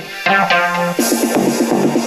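Electronic dance music: plucked, decaying notes, then about a second in a fast repeating synth pattern comes in with a high rushing hiss.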